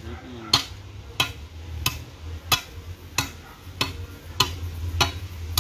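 A hammer striking a steel cutlass (machete) blade in a steady rhythm, about three blows every two seconds, each with a short metallic ring.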